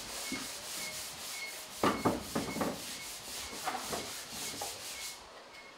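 Rapid, rhythmic metal rasping with a cluster of sharp knocks about two seconds in, as the bare steel driver's door of a stripped Mercedes E-class is handled on its hinges.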